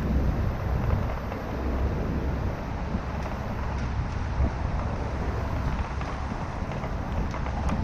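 Steady wind rumble on the microphone of a camera carried on a moving bicycle, over the noise of city traffic.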